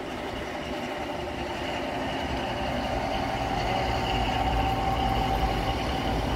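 V100-type diesel-hydraulic locomotive running along the track, its diesel engine giving a steady low rumble that slowly grows louder. A steady high whine comes in about halfway through.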